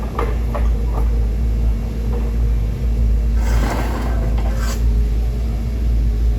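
Steady low rumble, with a few light clicks in the first second and a brief rushing noise a few seconds in.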